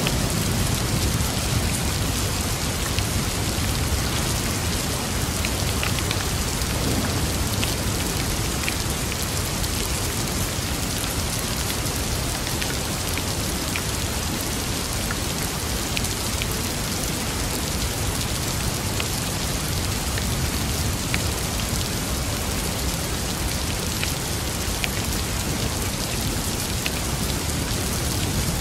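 Steady rain falling, with scattered individual drops ticking sharply above the even patter and a steady low rumble underneath.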